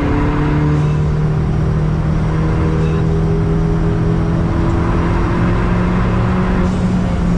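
Ford Fiesta ST180's 1.6-litre turbocharged four-cylinder engine heard from inside the cabin, pulling hard in one gear, its pitch rising slowly as the car gains speed, with road and tyre noise underneath.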